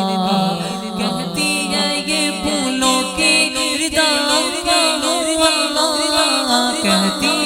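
Male voices chanting a devotional Urdu hamd: a held hummed drone under a wavering sung melody that shifts pitch about halfway through, with no clear words.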